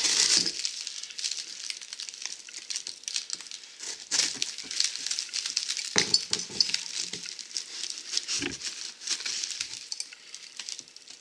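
Boxes of brake conversion parts being unpacked: paper and plastic packing crinkling and rustling, with a few knocks and clinks as parts are handled.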